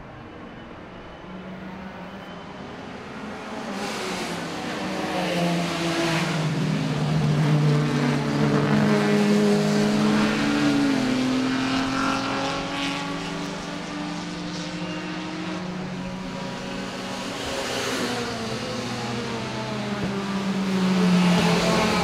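Vintage production sports cars with engines under two litres racing past, several engines revving and changing pitch through the gears. The sound builds to its loudest about eight to eleven seconds in, eases, and rises again near the end as more cars approach.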